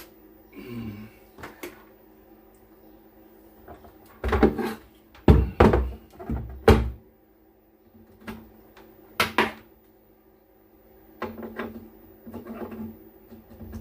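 A series of knocks and thumps from handling the audio mixer on the bench, loudest between about four and seven seconds in, over a steady low hum.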